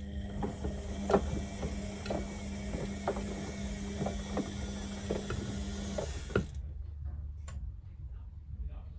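Beko WMB61431W washing machine running: a steady motor hum and hiss with irregular clicks and knocks from the turning drum, which stops suddenly about six and a half seconds in.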